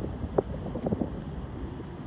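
Low rumble of a Boeing 737-700's CFM56-7B jet engines as the airliner climbs away, mixed with wind on the microphone. A few short thumps come about half a second in and again around one second in.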